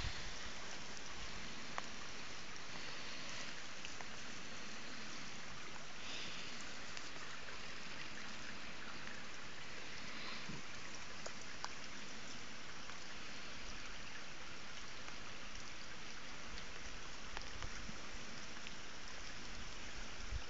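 Steady, even hiss of outdoor background noise, with a few faint clicks.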